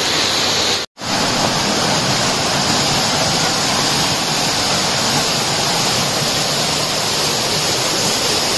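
Waterfall rushing, a steady loud wash of falling water, dropping out for an instant about a second in.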